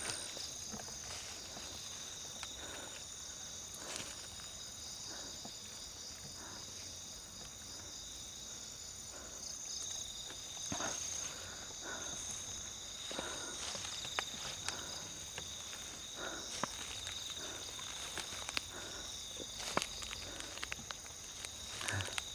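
Night insect chorus, crickets trilling in a steady high drone, with scattered faint rustles and clicks throughout.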